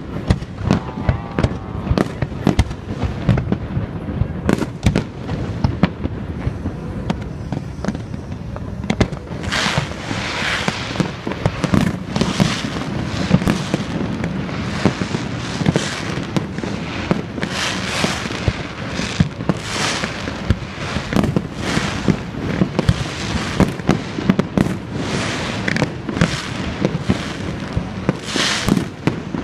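Aerial fireworks going off in rapid succession: many sharp bangs and cracks with crackling bursts, coming thickest from about nine seconds in, over a continuous booming rumble that distorts the phone's microphone.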